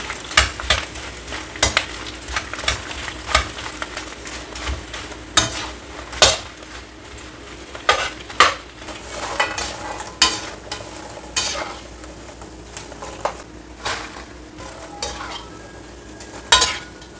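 Food frying in hot oil in a pan, sizzling steadily, while a utensil stirs it with irregular sharp clicks and scrapes against the pan.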